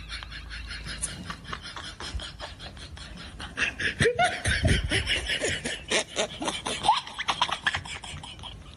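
People laughing and snickering in quick bursts, growing louder about four seconds in.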